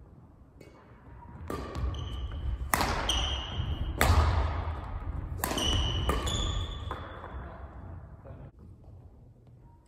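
Badminton rally: a series of sharp racket hits on the shuttlecock, about a second apart, echoing in a large gym, with short high squeaks of shoes on the wooden court between them. The hits stop a few seconds before the end as the rally finishes.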